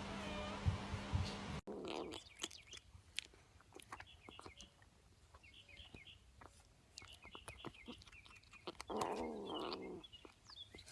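Faint, short animal chirps and scattered light clicks, with a louder pitched call about a second from the end.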